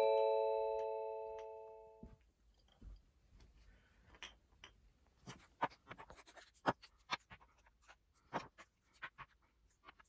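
The last of a descending four-note chime jingle rings out and fades over about two seconds. Then come irregular light clicks, taps and rustles of small objects being handled and moved about.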